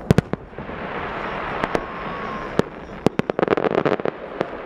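Aerial fireworks going off: sharp shell bangs, the loudest two right at the start, over a steady hiss. A dense run of rapid crackles comes a little past the middle, and single bangs fall between.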